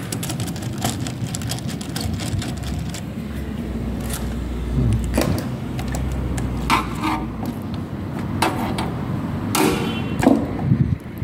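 Clicks, knocks and scrapes of a screwdriver working terminal screws and of plastic miniature circuit breakers being unclipped from a metal DIN rail, thickest in the first second. A low rumble swells in the middle.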